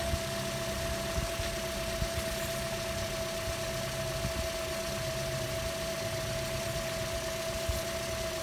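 Toyota Corolla's four-cylinder engine idling steadily in park, with an even low rumble and a steady high-pitched whine.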